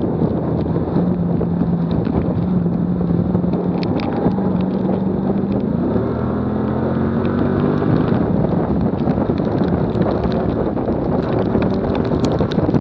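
Wind buffeting a bumper-mounted camera on a track car at speed, over road noise and a steady engine note that rises in pitch from about six to eight seconds in as the car accelerates hard.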